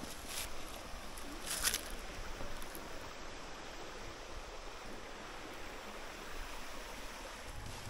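Steady rush of a flowing creek, with two short, sharper noises in the first two seconds.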